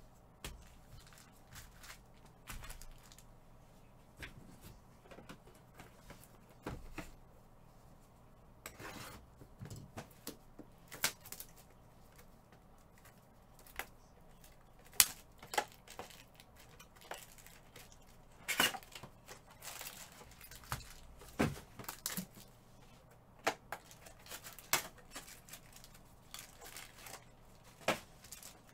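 Foil wrappers of Prizm trading card packs crinkling and tearing as they are handled, in a string of irregular sharp rustles, some louder than others.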